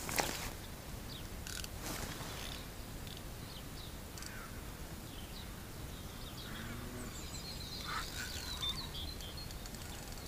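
Small birds chirping and calling in short high notes over a low outdoor rumble of wind on the microphone, with a brief rustle just after the start and another about two seconds in.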